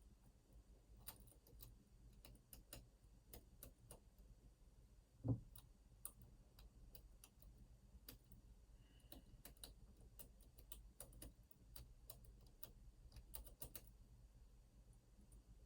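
Faint, irregular clicking of lock-picking tools working the pins of an Opnus TEX lock cylinder, with one louder low thump about five seconds in.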